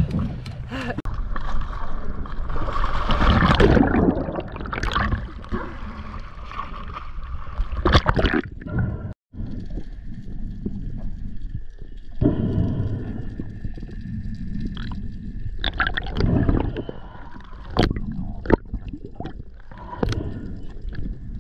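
Sea water sloshing and splashing at the surface, then, after a cut, muffled underwater sound of a freedive with gurgling and bubbles.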